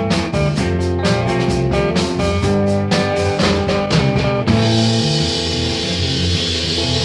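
Rock music with drums and guitar. About four and a half seconds in, the quick drum strokes give way to a steady, dense wash.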